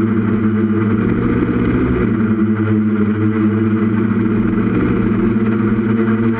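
Brushless Tiger motors and propellers of a 6S multirotor running with a steady whine, picked up by the camera on board, the pitch shifting slightly with throttle about two seconds in and again near five seconds.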